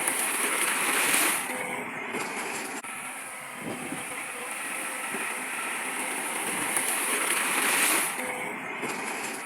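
Heavy construction machinery running steadily, with a noisy hiss that swells about a second in and again near the end, dropping off sharply each time.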